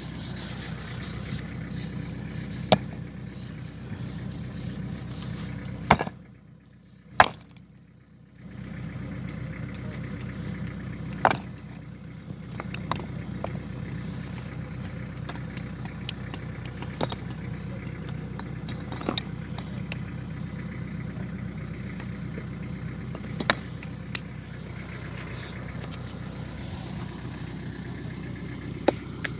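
A vehicle engine idling steadily, with scattered sharp knocks over it. The engine sound drops out for about two seconds roughly six seconds in.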